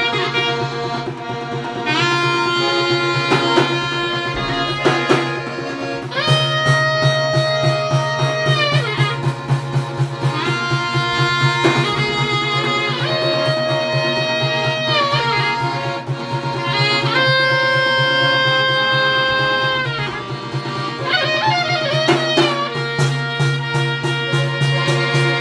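A trio of clarinet, accordion and large frame drum playing folk music. The clarinet holds long ornamented notes that bend down at their ends over a steady accordion bass, while the drum beats a fast, steady rhythm.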